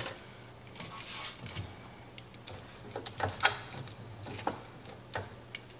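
Chicken pieces being nestled among potatoes in a pan: scattered light clicks and taps of food and utensils against the pan, over a faint steady low hum.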